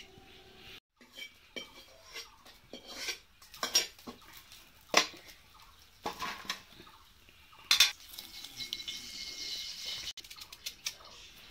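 Metal cookware clinking and knocking: irregular clanks and taps of aluminium and iron kitchen vessels being handled, with a steady hiss for a couple of seconds later on.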